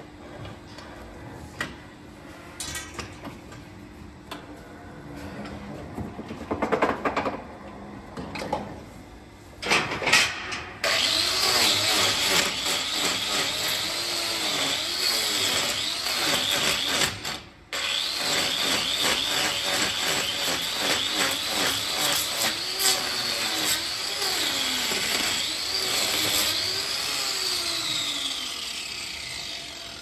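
Angle grinder with a hoof-trimming disc grinding down a cow's hoof: a loud whine whose pitch dips and recovers again and again as the disc bites into the horn. It starts about a third of the way in, after some scattered knocks, and stops briefly once near the middle.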